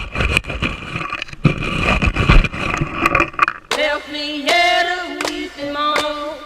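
Background music with a singing voice, coming through clearly from about four seconds in; before that it is mixed with rumbling, knocking noise.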